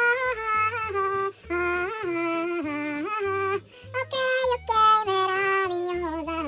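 A high-pitched singing voice carrying a melody in held, sliding notes, in phrases with short breaks, over backing music with a bass line.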